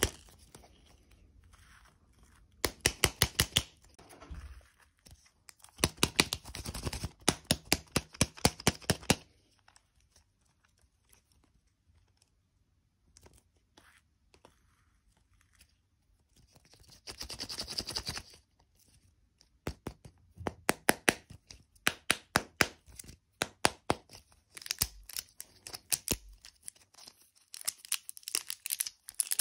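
Foil-wrapped plastic lollipop surprise eggs handled close up: runs of quick, sharp clicks and crinkles, a burst of crinkling about midway, and the foil wrapper crinkling and tearing as it is peeled off near the end.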